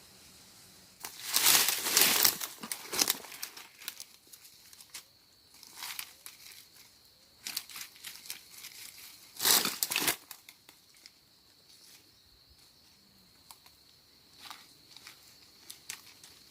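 Bursts of rustling and crackling of dry plant material being handled, loudest about one to three seconds in and again near ten seconds, with smaller crackles between.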